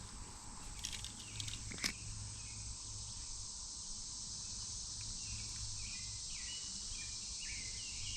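Outdoor creek ambience: a steady high insect hiss under short, repeated bird chirps in the second half, with a low steady hum beneath. Two sharp clicks sound about one and two seconds in.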